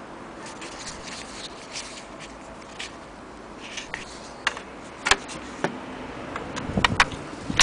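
Metal hand tools clicking and clinking against each other in a plastic tool tray as they are handled, scattered light clicks with a few sharper ones and a short burst of clatter near the end.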